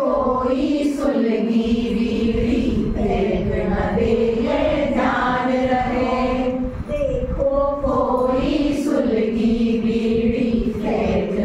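A group of women singing a Hindi song together in unison, holding long notes that rise and fall.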